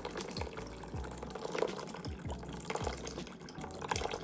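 White rum poured in a thin, steady stream from a bottle into a stainless steel bowl of soursop juice, a continuous trickling splash into the liquid. Background music with a steady beat runs beneath.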